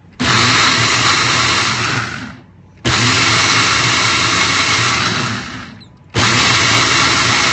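Ninja single-serve blender, its cup pressed down by hand, blending liquid pancake batter in three runs of two to three seconds each, the motor spinning down between them.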